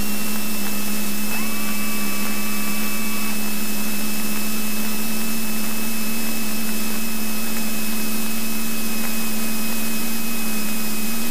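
Cessna 172N Skyhawk's four-cylinder Lycoming engine and propeller running steadily, heard inside the cabin as an even drone with hiss. A faint higher tone comes in about a second in and lasts about two seconds.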